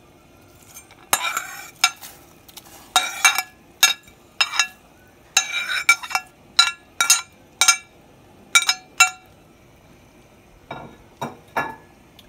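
Metal spoon clinking and scraping against a plate and the rim of a cooking pot as seasonings and chopped scallions are scraped into the pot: about a dozen sharp, ringing clinks at an irregular pace with a couple of longer scrapes, fainter toward the end.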